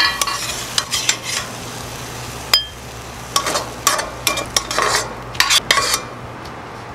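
Metal spatula scraping and clinking against a stainless steel pan as stir-fried water spinach is stirred and scooped out, with the pan's sizzle dying down now that the burner is off. One sharper clink rings the pan about two and a half seconds in, and the scraping stops about six seconds in.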